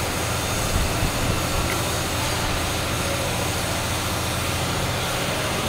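A steady low drone with hiss from something running in the shop, and a few light metal clicks about a second in as a differential side gear is set into the carrier by hand.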